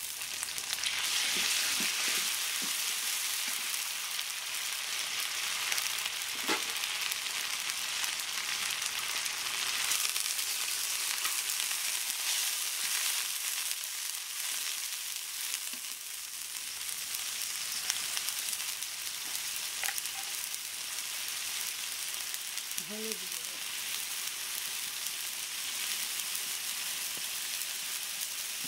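Sliced onions with chili, cumin and garlic pastes sizzling in hot soybean oil in a black wok (kadai), stirred with a metal spatula that now and then clicks against the pan. The sizzle is a steady hiss, loudest in the first few seconds.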